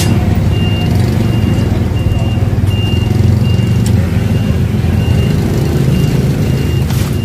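A motor vehicle's engine running with a steady low rumble, while a high electronic beep repeats about one and a half times a second, as a reversing alarm does. A sharp click comes near the end.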